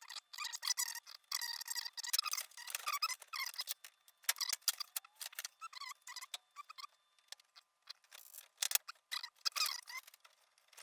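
Irregular clicks and short squeaks from a quarter-turn ball valve being worked onto the end of PEX tubing.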